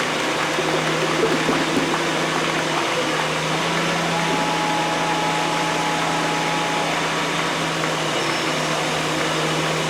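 An engine running steadily: a constant hum under an even rushing noise, with no rise or fall.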